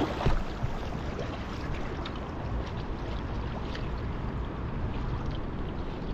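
Water lapping and sloshing against a kayak's hull as it moves through choppy water, with small scattered splashes.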